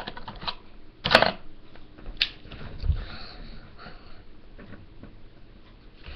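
Markers being handled, with a sharp click about a second in and a lighter click a second later, then a black felt-tip marker drawing faintly on paper.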